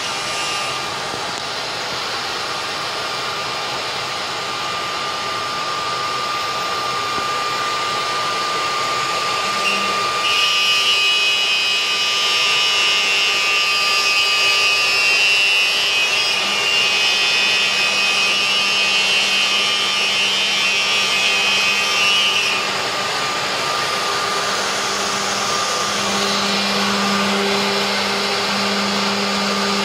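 CNC router spindle cutting aluminium alloy sheet: a steady whirring machine noise with a thin whine. About ten seconds in a louder, higher whine of several tones joins it and drops away after about twenty-two seconds.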